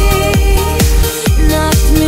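Electronic dance music with a deep kick drum a little over twice a second under sustained synth tones.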